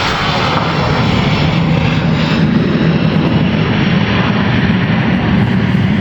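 Airplane engine running close by, a loud steady drone with a strong low hum.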